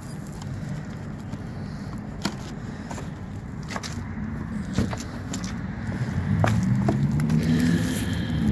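A motor vehicle's engine running, a low hum that grows louder over the last couple of seconds, with a few scattered clicks.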